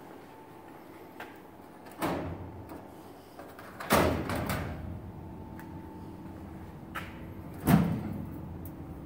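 Drawer of a steel filing cabinet being pulled and shoved, giving three scraping metal clanks. The loudest comes about halfway through, and each rings on briefly.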